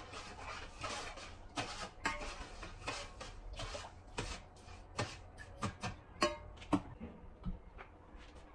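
Kitchenware clattering as it is handled and put down: a string of irregular knocks and clinks, some with a short ring, that die away near the end.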